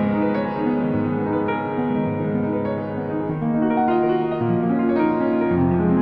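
Calm instrumental piano music with long held notes.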